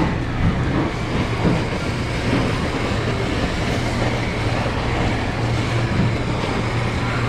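Handheld butane blowtorch flame hissing steadily as it sears the scaled skin of a sea bream fillet, over a steady low hum.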